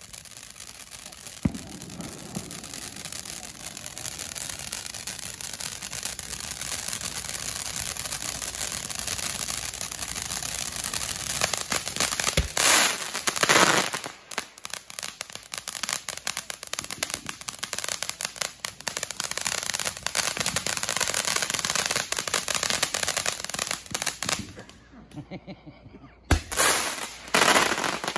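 Fireworks: a ground fountain firework hissing and crackling densely, building over several seconds, with sharp bangs from aerial bursts. The loudest bangs come about halfway through and again near the end.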